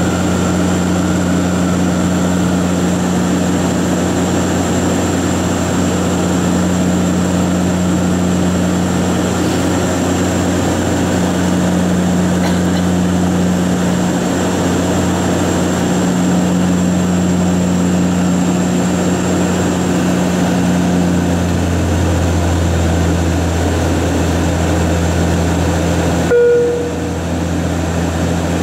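Steady drone of a Bombardier Q400's twin Pratt & Whitney PW150A turboprops and six-blade propellers heard inside the cabin during the climb-out, with a strong low propeller hum. The hum shifts slightly a little over two-thirds of the way in, and a short tone sounds near the end.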